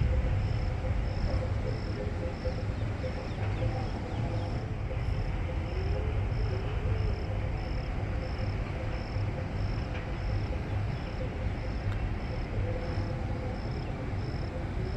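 Steady monsoon rain hiss with an insect chirping in an even rhythm, about three chirps a second.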